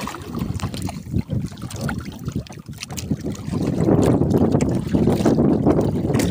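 Water sloshing and splashing against the side of a small boat, with a few small knocks at first; about three and a half seconds in it grows louder and steadier as a swimmer churns the water right alongside the hull.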